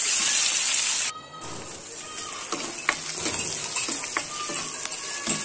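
Chopped meat, sliced onions and green chillies sizzling in hot oil in a karahi, with a metal ladle clicking and scraping against the pan as they are stirred. The sizzle drops suddenly about a second in, then carries on more quietly.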